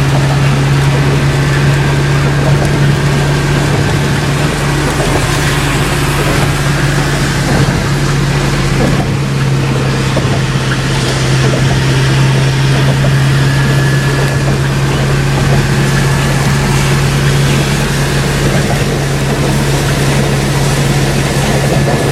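Songthaew (pickup-truck shared taxi) heard from on board: its engine runs with a steady low drone under a constant hiss of road noise.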